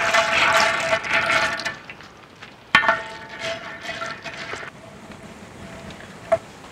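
Cashew nuts poured from a steel plate into hot ghee in a large metal uruli, a dense clattering pour with the metal ringing. About three seconds in, a sharp clang of the perforated ladle against the vessel rings out, then the cashews fry in the ghee with a low, steady sizzle.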